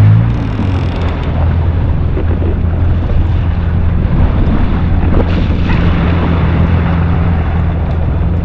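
Yamaha SHO jet ski engine running at a steady low speed, a constant hum, with wind buffeting the microphone and sea water rushing.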